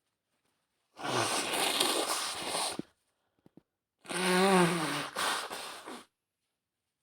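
A woman with a cold blowing her nose hard into a tissue twice, each blow long, the second with her voice rising and falling through it. A couple of small clicks come between the blows.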